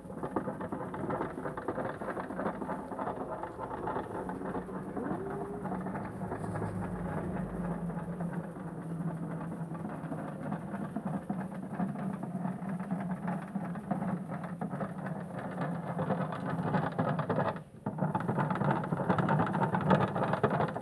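Washing machine running with a steady low hum and churning, cutting out for a moment near the end before carrying on.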